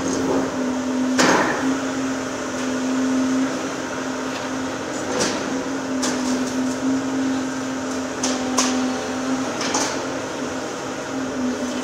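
Volvo EC750E high-reach demolition excavator running with a steady hum, while about five sharp knocks and clanks of demolition debris break in at irregular intervals.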